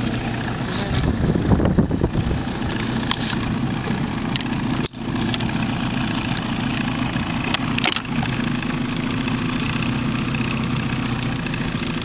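A black drum drumming out of the water: a low, steady drone.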